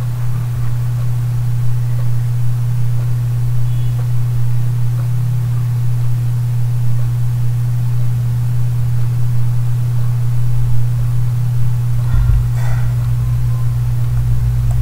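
Steady low electrical hum with a faint hiss behind it, and no speech.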